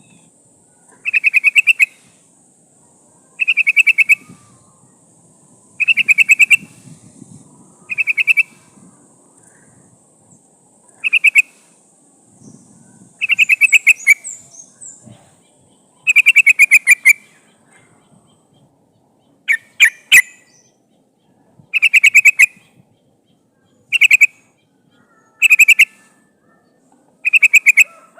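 Yellow-vented bulbul (trucukan) calling in short bursts of rapid chattering notes, repeated about every two seconds; the call is a female calling for a male, used as a lure.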